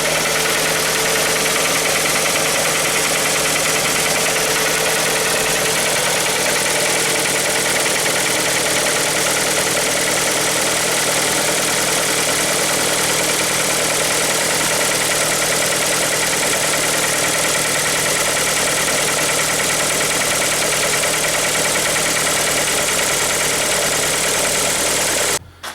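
Hyundai ix35's 2.0-litre G4KD four-cylinder petrol engine running steadily at idle on its first start of the morning, an engine brought in for a new knock and raised noise after a timing-chain replacement. It cuts off suddenly near the end.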